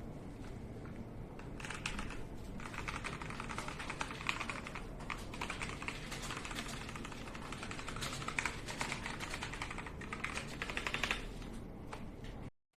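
Typing on a LEAVEN H96 mechanical keyboard: fast, dense key clicks that start about a second and a half in and stop about a second before the end.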